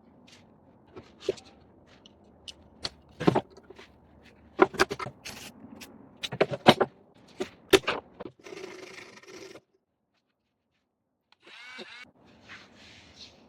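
Workshop handling of tin snips: a series of sharp, irregular knocks and clinks of metal, then a brief scraping about eight seconds in. A cut to silence follows, then a few softer scrapes.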